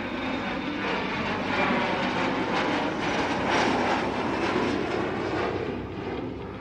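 Airplane flying past, its engines making a rushing noise that swells to its loudest in the middle and fades away near the end.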